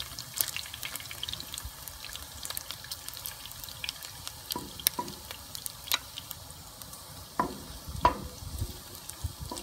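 Diced pork belly and slices of ginger sizzling and crackling in hot rendered pork fat in a wok, the ginger frying to flavour the fat. A wooden spoon stirs them, with a few sharper knocks against the pan in the second half.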